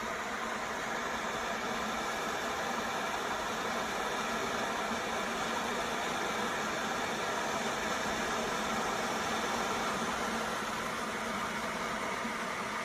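Electric kettle heating water, a steady even rushing noise.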